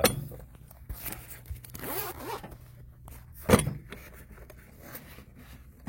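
A zipper being drawn, with a single sharp knock about three and a half seconds in.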